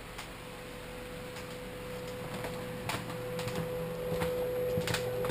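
A steady hum with a held tone that grows gradually louder, and a few sharp knocks about three and five seconds in, most likely footsteps of the person walking through the apartment with the camera.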